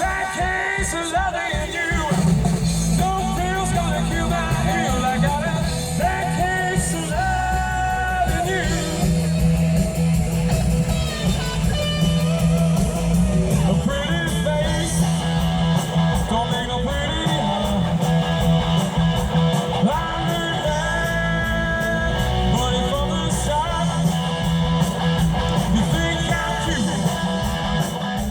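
Live rock band playing loudly through a PA, with electric guitar, bass and drums and some singing.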